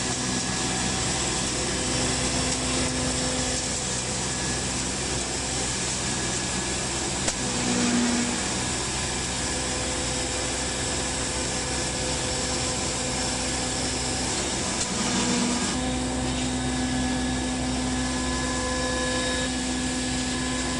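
Hammer mill running and crushing dry straw fed into its hopper: a loud, steady machine drone with a constant hum, with a slight change in tone about three-quarters of the way through.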